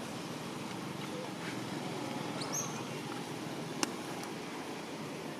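Steady outdoor background noise with faint voices, a brief high chirp that rises then levels off about two and a half seconds in, and one sharp click near the four-second mark.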